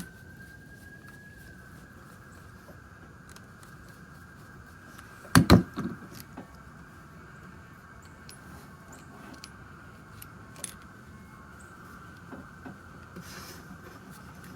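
Clicks and rattles of a replacement power plug's plastic case and cord being handled and worked together, with two sharp knocks about five and a half seconds in. A faint steady high whine runs underneath.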